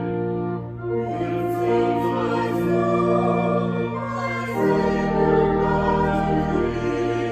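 A hymn sung by a choir of voices over sustained instrumental accompaniment, in long held notes that change chord every second or two.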